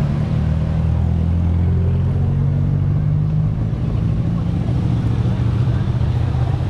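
A vehicle engine running steadily close by, heard as a low, steady hum.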